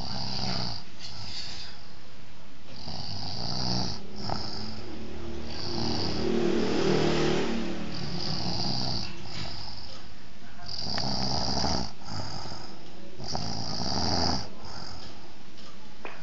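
A person snoring, one snore every second or so in a steady rhythm.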